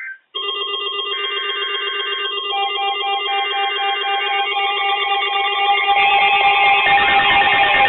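Electronic alarm tones from weather alert radio receivers, several steady and pulsing beeps sounding together. More tones join a couple of seconds in, and a sweeping tone comes in near the end.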